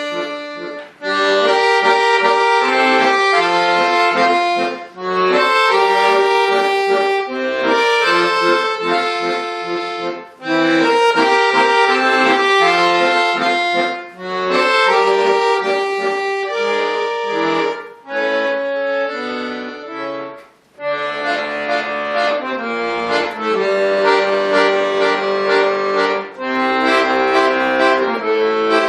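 Bayan, the Russian button accordion, playing a piece with full chords, in phrases broken by brief pauses every few seconds.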